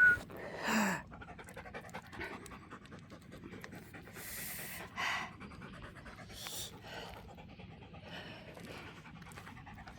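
A dog panting after running fetch.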